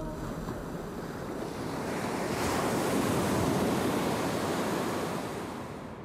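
Sea waves surging: a rush of surf that swells to a peak midway and then fades away.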